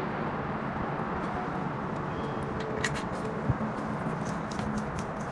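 Wooden chopsticks stirring a dumpling filling of chopped chives, egg and shrimp in a stainless steel bowl, with light clicks against the bowl that come thicker from about three seconds in, over a steady background noise.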